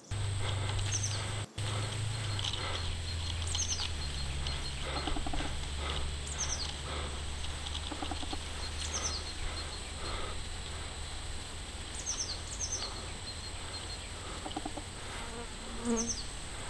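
A low, steady buzzing drone that steps down in pitch a few seconds in, with short, faint, high falling chirps every one to three seconds, like insects in woods at night.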